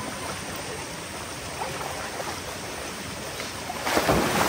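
Shallow river water rushing steadily over rocks, with a brief louder surge of noise about four seconds in.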